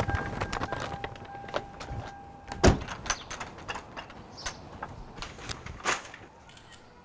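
A car door and a wooden gate being handled: a run of clicks, rattles and knocks. The loudest is one sharp thud just under three seconds in, and a steady electronic tone sounds until that thud.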